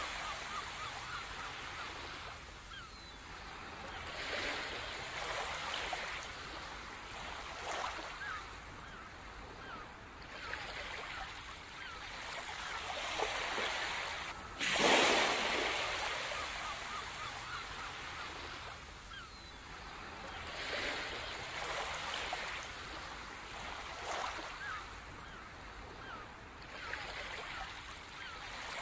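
Ocean surf: waves washing onto a beach in slow swells every few seconds, the biggest about fifteen seconds in, with faint bird calls among them.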